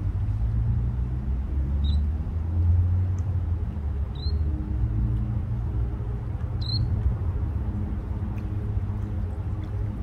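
Steady low rumble with a faint hum underneath, with three short, high peeps about two and a half seconds apart from small sandpipers foraging at the water's edge.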